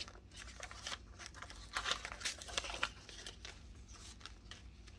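Paper banknotes rustling and crinkling as they are counted through and slid into a clear plastic envelope in a ring binder, in a string of short bursts, most of them about two seconds in.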